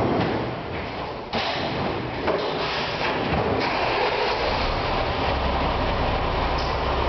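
A fire station bay during a callout: doors sliding and thumping, then a fire truck's engine starting about five seconds in and running at a steady low idle.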